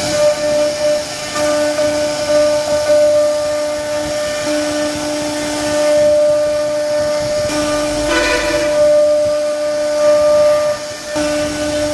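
CNC router spindle whining at a steady high pitch while its bit carves a relief pattern into a wooden board, with a hiss of cutting over it. A lower tone drops in and out, and there is a brief rougher burst about eight seconds in.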